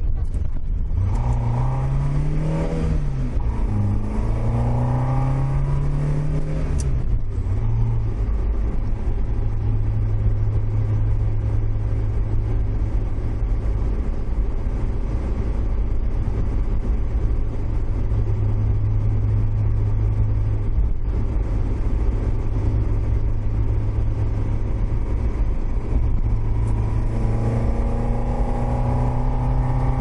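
Toyota AE86's four-cylinder engine pulling hard through two gears: the revs climb, drop at a shift and climb again in the first seven seconds. It then cruises at steady revs over heavy road and wind rumble, and starts to rev up again near the end.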